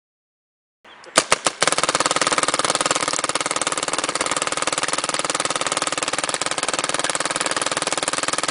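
Vanguard Creed electronic paintball marker firing: three single shots about a second in, then a rapid, continuous stream of shots.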